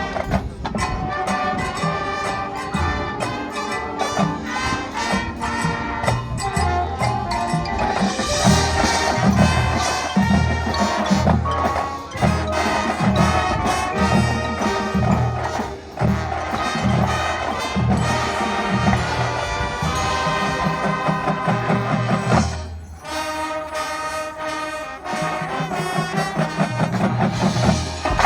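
Marching show band playing, brass over drums with a steady pulsing beat. The low brass and drums drop back for a couple of seconds about three-quarters of the way through, then return.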